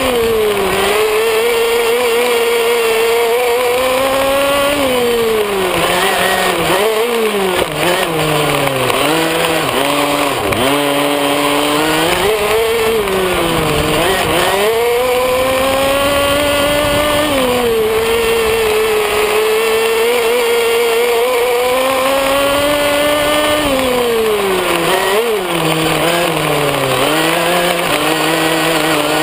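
Small engine of a radio-controlled buggy, heard up close from a camera mounted on the car, revving up and down as it is driven. The pitch climbs and sags repeatedly, dipping low for a few seconds twice as the throttle is eased off.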